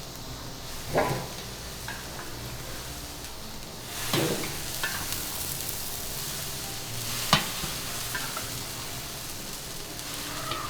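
Food sizzling in a hot pan, the sizzle growing louder about four seconds in, with three sharp knocks of a cooking utensil against the pan.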